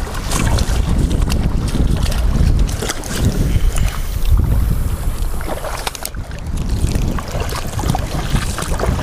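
Strong wind buffeting the camera microphone in a loud, gusting low rumble, over small waves washing on a rocky shoreline.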